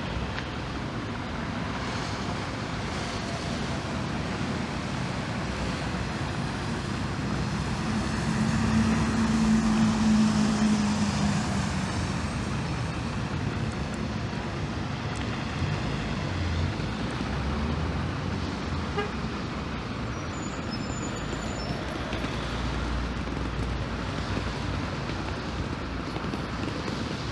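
Road traffic around a bus station, with a vehicle passing close between about 8 and 11 seconds in, bringing a steady low engine drone.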